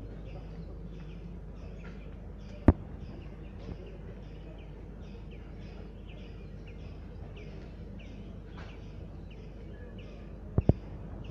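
Outdoor ambience of birds chirping, short calls repeated a few times a second, over a low steady rumble. A sharp click cuts in about a quarter of the way in, and two more come close together near the end.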